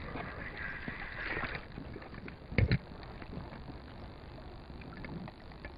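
Kayak on calm water being moved about, with small knocks and one loud knock about two and a half seconds in, something striking the kayak's hull.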